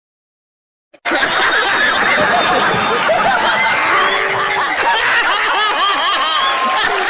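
About a second of dead silence, then many people laughing at once, a steady wall of overlapping laughter that runs on unbroken.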